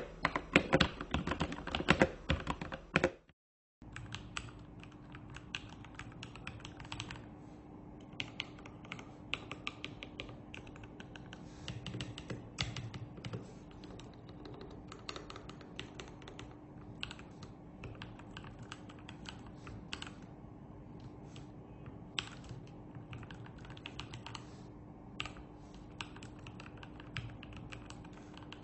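Typing on a Marsback M1 mechanical keyboard with clicky blue switches: a fast, irregular run of key clicks. The clicks are louder for the first three seconds, then after a brief gap the typing goes on steadily over a faint steady hum.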